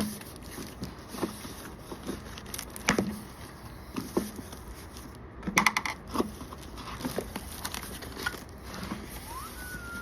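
A cardboard parts box being opened and handled: scattered knocks and clicks, with brief crinkling of tape and packaging. A short whistle-like tone rises and then holds near the end.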